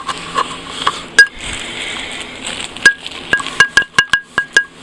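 Sharp clicks with a brief ring to each: one about a second in, then a quick irregular run of them in the second half.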